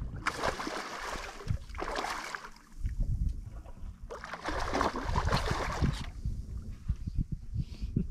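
Water splashing in two bursts of about two seconds each as a hooked fish thrashes at the surface beside the boat, over a low wind rumble.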